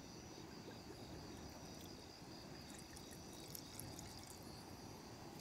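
Quiet background of crickets chirring faintly and steadily, with a couple of faint ticks about midway.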